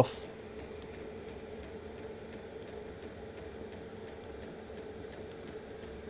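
Cheap Chinese diesel air heater running: a steady hum from its blower, with the fuel dosing pump ticking quickly and evenly as it modulates to hold the combustion temperature.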